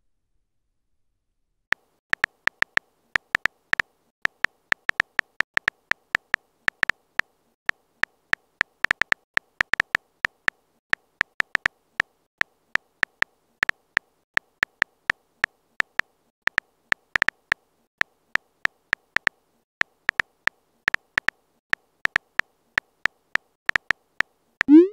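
Phone-keyboard key-click sounds from a texting app: a long, irregular run of short clicks, several a second, as a message is typed. It starts after a silent second or two and ends with the rising swoosh of the message being sent.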